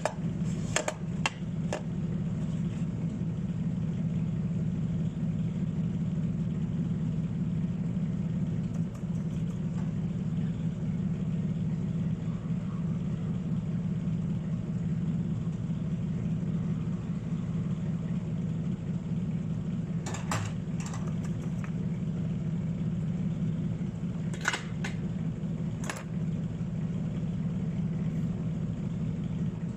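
Steady machine hum, even in pitch and level, with a few sharp clicks scattered through it.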